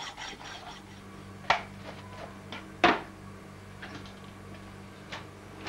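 Workshop handling noise: two sharp knocks about a second and a half apart, with a few lighter clicks, over a steady low hum.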